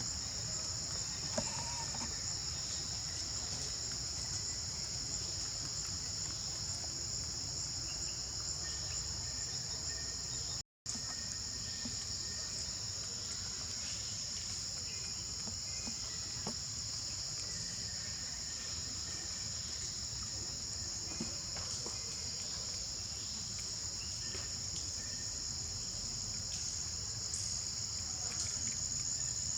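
Steady, high-pitched chorus of insects that runs without a break, cutting out for a moment about eleven seconds in.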